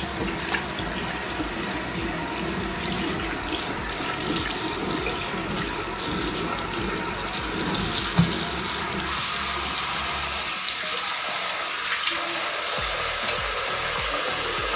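A tap running water steadily into a sink, with a single knock about eight seconds in.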